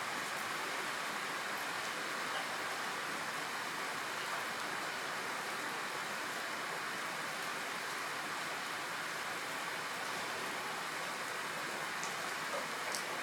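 Steady rain falling, an even hiss with a few faint ticks near the end.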